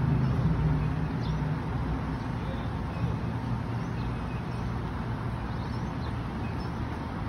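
Steady rumble of city road traffic, with a few faint high chirps over it.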